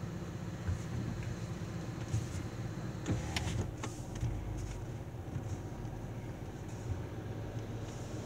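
A car's engine running at low speed, heard from inside the cabin as the car creeps forward, as a steady low hum with a few faint, irregular clicks.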